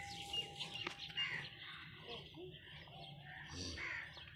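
Hand milking a cow: soft squirts of milk streaming from the teats into a steel bucket, with small birds chirping.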